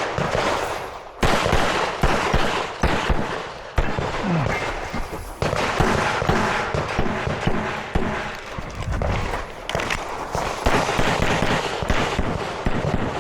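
A string of pistol shots, a dozen or more, fired irregularly about a second or less apart with short pauses, each sharp report followed by a brief ring-out. This is a competitor firing a timed IDPA stage with a service pistol.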